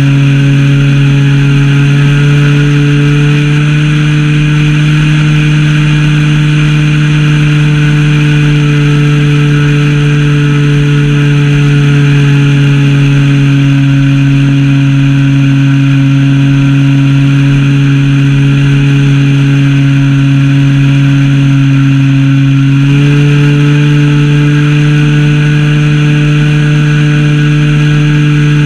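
Zenoah ZP 20 two-stroke gas engine of a Super Senior 80 RC plane running steadily in flight, heard close up from atop the airframe. Its pitch drifts down slowly in the middle, then steps up sharply about three-quarters of the way through.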